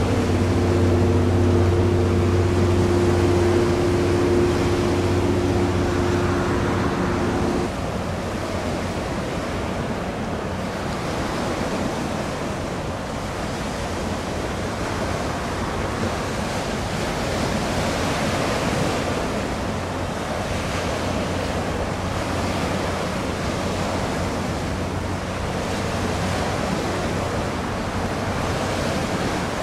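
Sea waves washing and wind on the microphone, a steady rushing noise. Over it, a low steady hum of several tones runs for the first several seconds and cuts off suddenly about eight seconds in.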